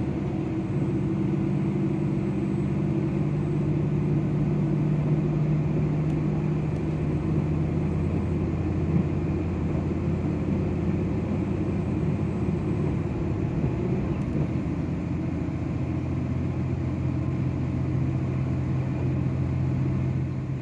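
Diesel-hydraulic KiHa 261 series express train running, heard from inside the passenger car: a steady low drone of the underfloor diesel engines and the running noise of the wheels. The engine hum eases about midway and comes back stronger toward the end.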